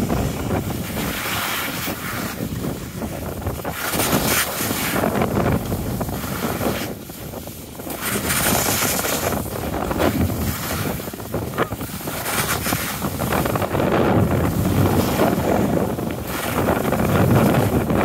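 Wind rushing over the microphone of a moving skier, mixed with skis scraping over packed snow. The rushing noise swells and eases throughout, dipping briefly about seven seconds in.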